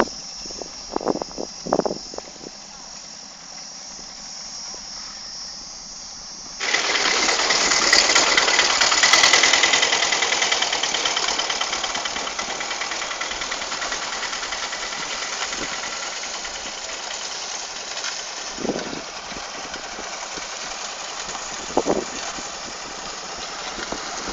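A steady high insect-like hum with a few short knocks, then, about a quarter of the way in, a loud engine of construction machinery comes in abruptly and keeps running, slowly easing off, with two short louder sounds near the end.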